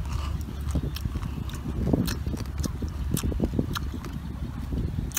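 Close-up eating of green papaya salad by hand: wet chewing and mouth clicks at irregular intervals, with the salad being squeezed between the fingers, busiest about two to three and a half seconds in, over a low steady rumble.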